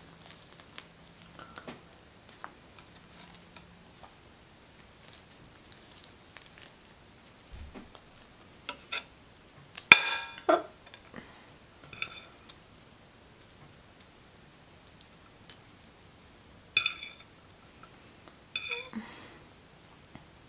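Cutlery clinking and scraping on a plate, with a sharp ringing clank about halfway through and a few more clinks near the end, and small soft eating clicks between.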